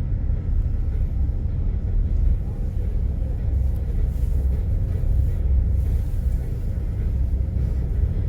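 Steady low rumble of a passenger ferry under way.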